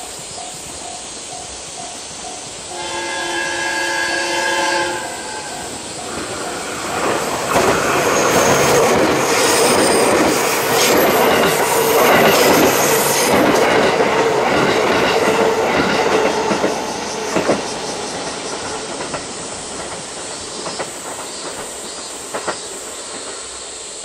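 JR West 221 series electric train sounding its horn for about two seconds, then passing close by with loud wheel and rail noise that peaks mid-way and fades as it draws away, with a few sharp clacks near the end. A level-crossing bell rings in rapid steady dings at the start.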